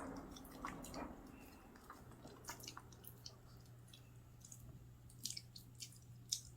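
Faint, irregular small clicks and crunches of a pet snack being chewed.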